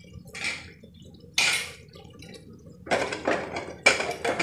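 Metal pressure-cooker lid being fitted onto the cooker: two short scraping sounds, then a run of metallic clattering from about three seconds in as the lid is worked into place.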